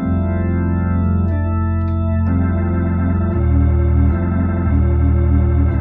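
Hammond A100 organ, played through a Leslie 45 speaker, sounding a progression of sustained chords over bass-pedal notes. It starts on a chord over F in the bass, and the chord changes about every second.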